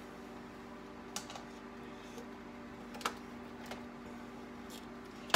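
Quiet kitchen background: a steady low hum, with a few faint light taps and clicks as utensils and a mixing bowl are handled at the stove.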